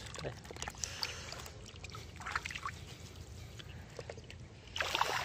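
Water dripping and sloshing as a fishing net is pulled up over the side of a small boat, with faint scattered ticks, and a louder splashy burst near the end.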